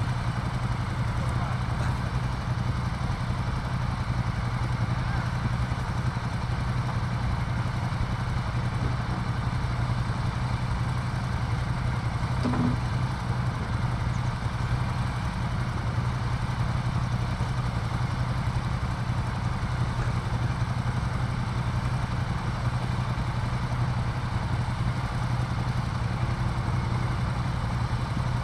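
Several motorcycle engines idling steadily with a low hum.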